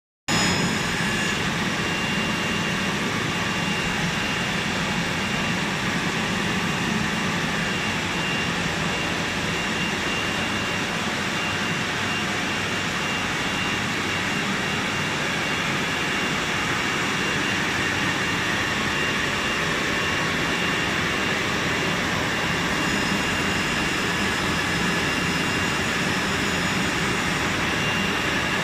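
Steam shrink tunnel and hot air dryer for bottles running: a steady, even roar of blowing air and steam, with a faint steady high tone over it.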